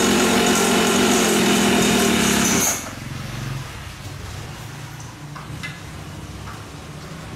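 A 50cc two-stroke mini dirt bike engine running steadily, then cutting out abruptly nearly three seconds in. A faint low hum and a few light clicks are left after it.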